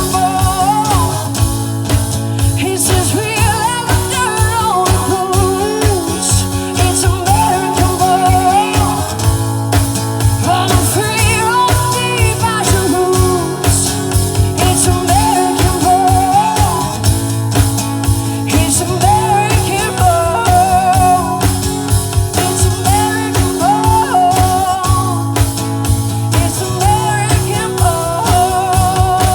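A song performed live: a sung lead vocal over guitar, a steady low bass line and a regular drum beat, in a pop-rock style.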